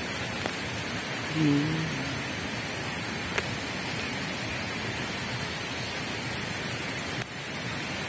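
Steady hiss of outdoor background noise, with a few faint clicks and a short low hum about a second and a half in.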